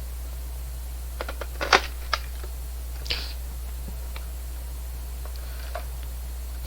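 A handful of sharp plastic clicks and knocks from handling the battery and adapter: a quick cluster about a second in, the loudest near the middle of it, and one more click a second later. A steady low hum runs underneath.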